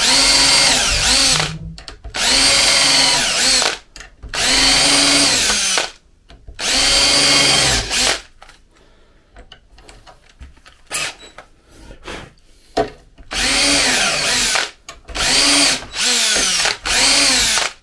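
Cordless DeWalt drill with a self-centring hinge bit, drilling pilot holes through a brass hinge's screw holes into oak. It makes about eight short runs, the motor pitch rising and falling with each pull of the trigger: four longer runs, a pause of about five seconds with light clicks, then four quicker ones near the end.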